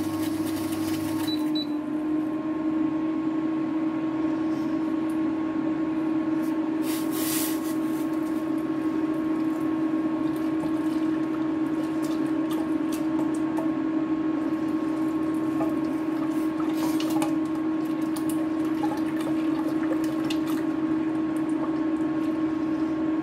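Hot water poured from a steel bowl into a pot of boiled mung dal and stirred in with a ladle, over a steady hum from the induction cooktop.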